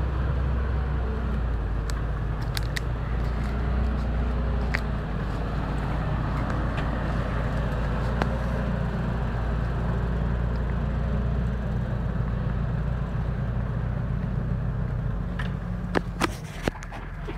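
Tractor's diesel engine running steadily under heavy load as it drags a loaded Fliegl dump trailer through deep mud. The hum eases a little near the end, where a few sharp knocks come in.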